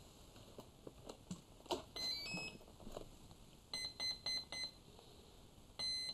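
Battery connector clicking as it is plugged in, then a brushless ESC's power-up beeps: a short rising run of tones, four short beeps and one longer beep near the end. This is the usual start-up sequence, with four beeps for a 4S battery and a long beep that means the ESC is armed.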